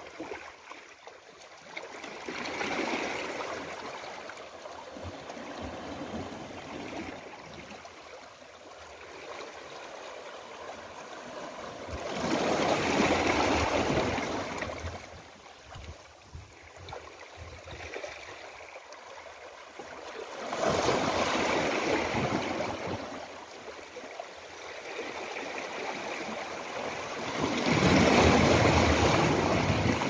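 Small sea waves washing in among large shoreline boulders and draining back, with a hiss of foam and gurgling water between the rocks. The wash swells into a louder surge four times, several seconds apart, the strongest near the end.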